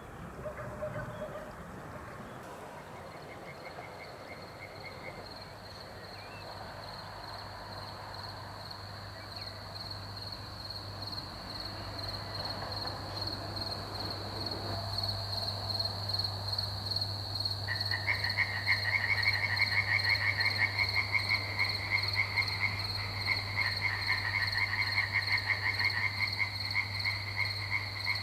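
Frogs calling in rapid pulsed trills, growing loud about two-thirds of the way through, over a steady high chirring of evening crickets.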